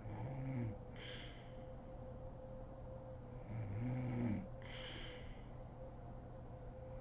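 A sleeping woman snoring: two snores about three and a half seconds apart, each a low pitched snore followed by a short breathy hiss.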